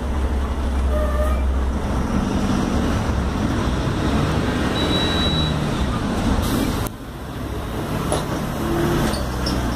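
Mercedes-Benz OF-1721L city bus's diesel engine running as the bus drives along, with road noise. The engine pitch rises and falls, and there is a brief dip in level about seven seconds in.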